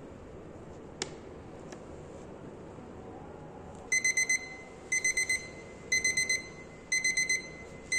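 Digital countdown timer beeping as its 30-second count runs out, marking the next blot of the filter paper in a bleeding-time test. The beeps come in quick high groups about once a second, starting about four seconds in. A single click sounds about a second in.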